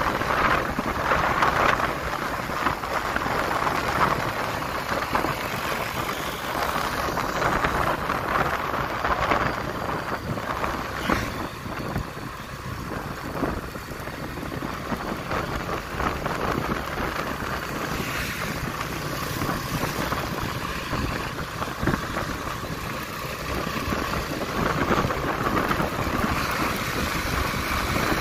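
Steady rush of wind over the microphone and road noise from a moving motorcycle.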